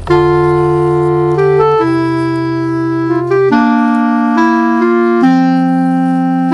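Background music: sustained keyboard chords that change every second or two.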